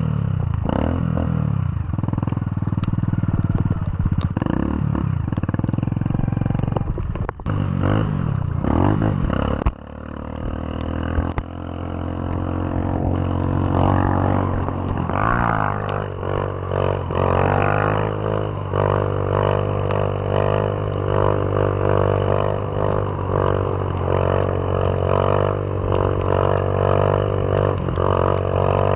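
Motorcycle engine under way, its pitch rising and falling as the throttle is worked for the first ten seconds. About ten seconds in it drops off, then climbs again as the bike accelerates and settles into a steady drone.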